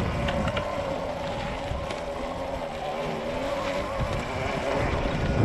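Rawrr Mantis 72-volt electric dirt bike under way: a steady electric motor whine, with a lower tone that dips and rises as the speed changes, over a low rumble of wind and tyres on dry leaves.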